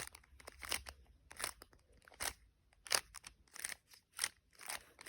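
Plastic Rubik's cube being turned face by face through a last-layer permutation algorithm: a quick series of about a dozen short clicking rasps, one for each turn.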